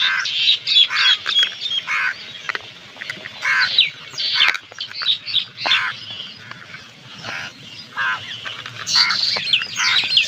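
Birds calling repeatedly in short chirps and squawks with quick pitch slides, with a few sharp clicks among them.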